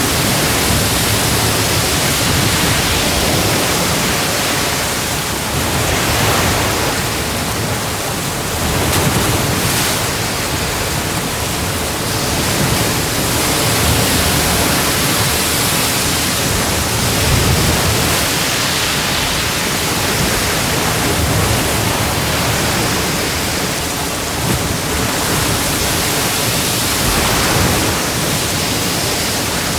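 Ocean surf breaking on a shore: a continuous wash of waves that swells and eases every few seconds.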